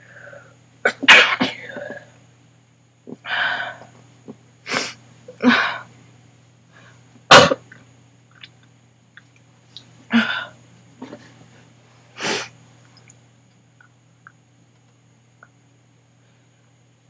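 A woman in a sneezing fit: a run of several sneezes in quick succession, some with a breathy intake before them. The sharpest and loudest comes about seven seconds in.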